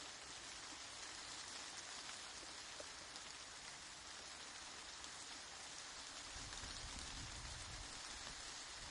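Steady rain falling and pattering on surfaces, with faint individual drop ticks. A low rumble swells in about two-thirds of the way through and fades again just before the end.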